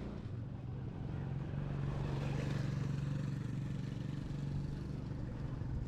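Motor vehicle engine running with a steady low hum, swelling a little louder a couple of seconds in and then easing back, over the rumble of the vehicle on the road.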